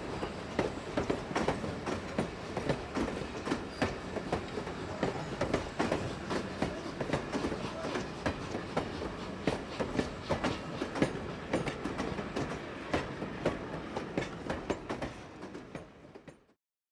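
Railway train running, its wheels clicking over rail joints in a dense, uneven clatter with no whistle. The sound fades out near the end.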